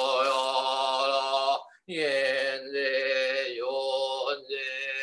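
A man chanting Buddhist prayers in long, held notes, breaking off briefly for breath about two seconds in.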